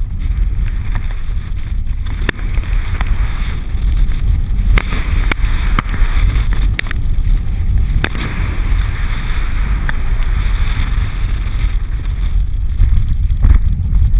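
Wind buffeting the microphone with a low rumble, over the steady hiss of a snow tube sliding fast down a packed snow run, with several sharp knocks as it jolts over bumps.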